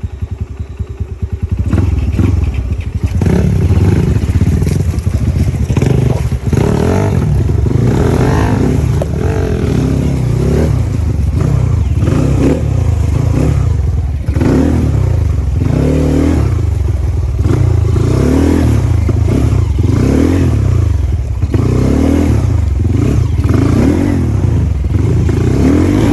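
Motorcycle engine ticking over, then getting much louder about two seconds in as the bike is ridden, its pitch rising and falling over and over with throttle, along with clattering.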